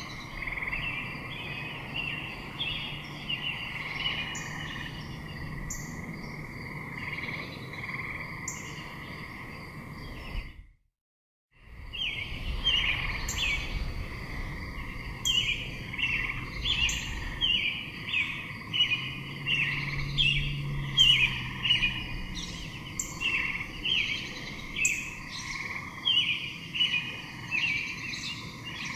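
Small birds chirping, many short chirps one after another, over a steady background hum. All sound cuts out for about a second partway through.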